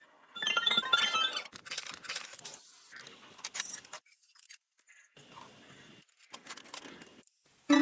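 Small hard objects clinking and rattling as they are handled, with a burst of ringing clinks about a second in, then scattered clicks and light scrapes.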